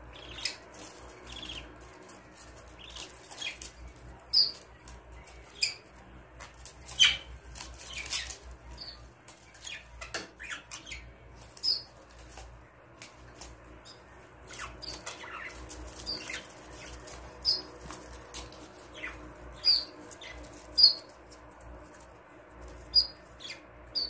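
Pet budgerigars chirping in short, scattered high calls, with brief rustling sounds in between.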